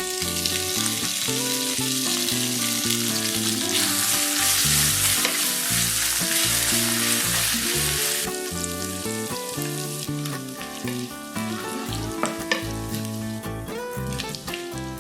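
Food sizzling in hot oil in a pan, over background music; the sizzle is loudest in the middle and drops away about halfway through.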